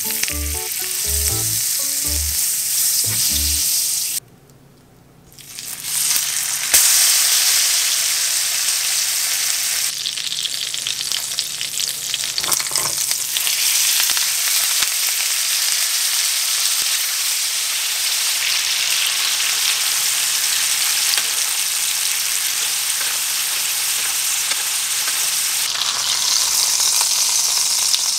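Butter and olive oil sizzling in a nonstick frying pan, then, after a short break about four seconds in, a thick bone-in T-bone steak searing in the fat with a loud, steady sizzle.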